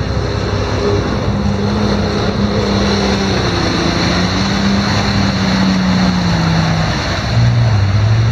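Engines of modified off-road 4x4 trucks running under load, one steady engine note that wavers slightly, then a louder, lower note taking over about seven seconds in.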